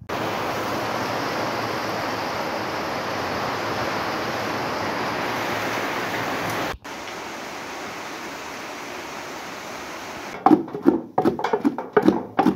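Heavy rain falling steadily. It drops abruptly to a quieter rain sound about seven seconds in, and a voice starts near the end.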